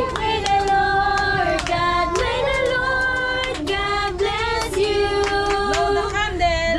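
A group of women and children singing a birthday song together in long held notes, with hand claps.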